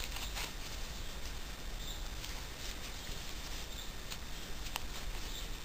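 Faint scratchy ticks and rustles of a metal crochet hook pulling yarn through stitches as single crochet is worked, over a steady background hiss.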